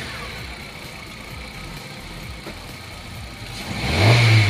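Hyundai Accent engine idling just after a start on its repaired Bendix-drive starter, then revved briefly near the end, the sound swelling and dropping back.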